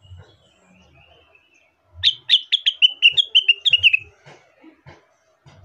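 Blue-winged leafbird (cucak wilis, rengganis) singing: soft twittering, then, about two seconds in, a loud rapid run of about a dozen clear notes slipping down in pitch. Faint low knocks sound now and then.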